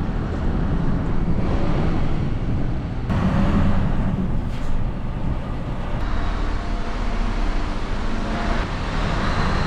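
Scania V8 lorry engine running steadily, heard from inside the cab as the truck drives down a ferry's loading ramp onto the vehicle deck, with tyre and road rumble beneath it.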